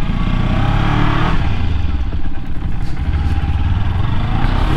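Kawasaki Ninja 300's parallel-twin engine running at low speed through a slow turn, its note rising and falling briefly about a second in.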